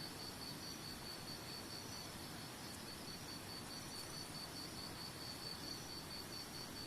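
A cricket chirping in an even, rapid pulse, over a faint steady rush of running water.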